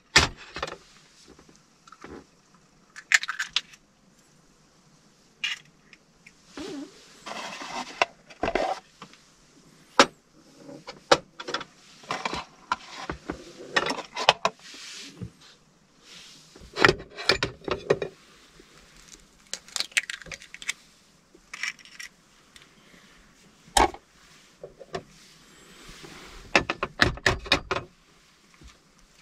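Raw eggs being taken from a carton, tapped and cracked open into a plastic bowl, with shells cracking and small items handled on a metal table. The result is a series of scattered sharp clicks and knocks between short rustling stretches.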